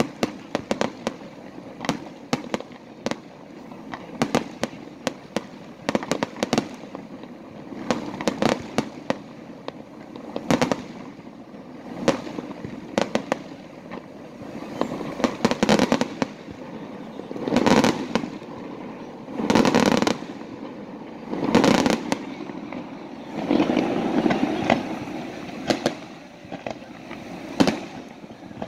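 Aerial firework shells bursting in a rapid, irregular run of sharp bangs. About two-thirds of the way through come three heavier booms about two seconds apart, followed by a longer rumbling stretch.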